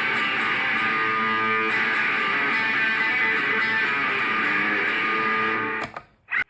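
Electric guitar played through a preset patch of a Zoom G1X Four multi-effects pedal: full chords ringing steadily, then stopping abruptly a little before the end, with one short note in the silence.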